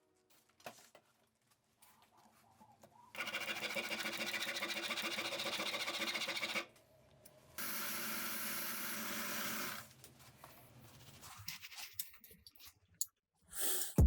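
A small electric power tool's motor runs steadily for about three and a half seconds, stops, then runs again for about two seconds; a few light clicks and taps follow near the end.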